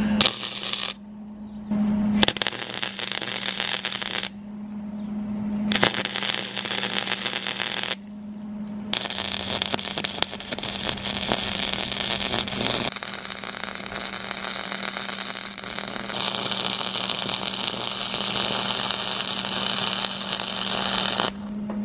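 MIG welding arc crackling on steel pipe fittings. It comes in several short runs with brief pauses over the first eight seconds, then one continuous run of about twelve seconds. A steady low hum sits underneath throughout.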